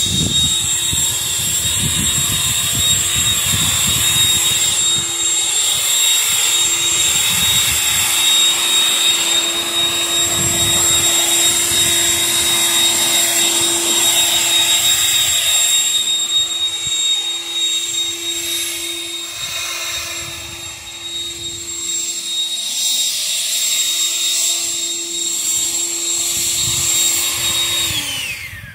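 Harbor Freight Bauer electric leaf blower running steadily, a high whine over rushing air, then winding down with a falling pitch as it is switched off near the end.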